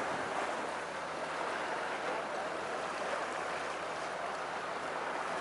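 Small sea waves washing onto a sandy beach: a steady, even rush of water.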